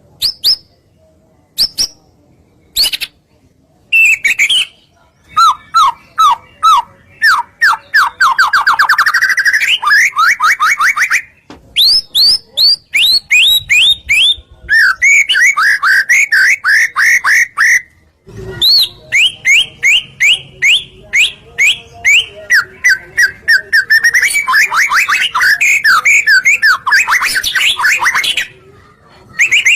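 Songbird singing a lure song: fast runs of repeated whistled notes and trills, some sweeping up and some down, sung loudly and cut by several sudden short breaks.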